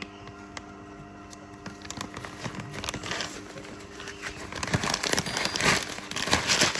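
A continuous band sealer with a conveyor runs with a steady hum. A little under two seconds in, irregular crinkling and rustling of plastic bags starts and grows louder toward the end.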